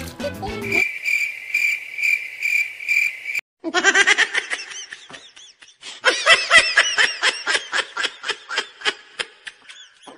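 Cricket chirping sound effect, an even pulsing chirp for about three seconds, followed by high-pitched laughter in rapid repeated bursts that starts about halfway in and runs to near the end.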